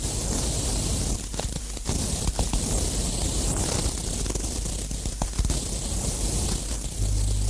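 Harsh noise music: a dense wash of hiss with scattered sharp clicks. A heavy low drone comes in about seven seconds in.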